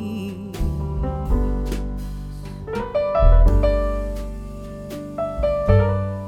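Background music: piano-led instrumental with a deep bass line and a steady beat.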